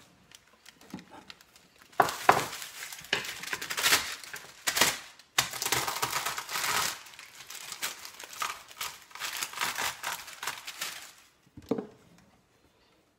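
Butter paper crinkling and rustling as the hardened caramelised sugar and cashew brittle folded inside it is crushed into small pieces by hand, in irregular crackly bursts that stop about two seconds before the end.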